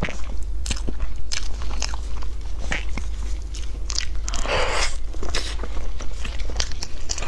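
Close-miked biting and chewing of a soft sponge cake roll, heard as scattered wet clicks and crackles, with one longer bite about four and a half seconds in, over a low steady hum.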